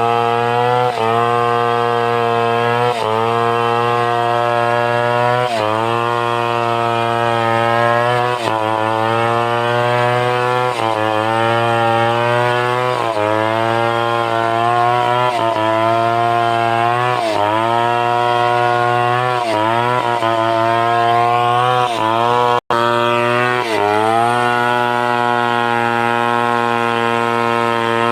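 Stihl 070 two-stroke chainsaw running at high revs while cutting through timber. Its pitch sags briefly under load and recovers about every two to three seconds.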